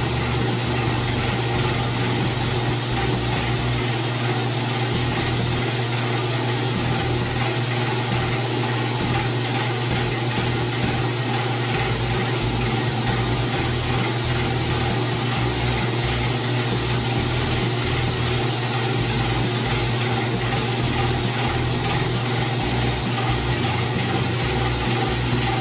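Small electric oil press running with a steady hum while it presses cacao beans, squeezing out cocoa butter and pushing the pressed cake out of its nozzle.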